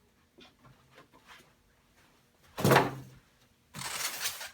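Cardboard packaging being handled: a few light knocks and rustles, then a loud thump about two and a half seconds in as a box is set down or knocked. A second or so of cardboard sliding and scraping follows near the end.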